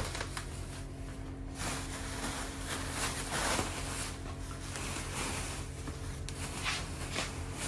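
Plastic bubble wrap rustling and crinkling as it is pulled and bunched by hand, louder after about a second and a half.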